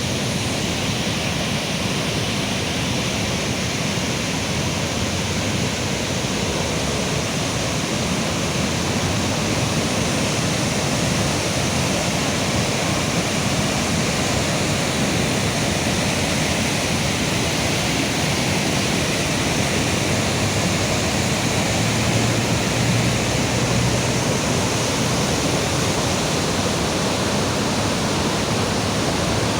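Floodwater rushing, a steady, unbroken noise.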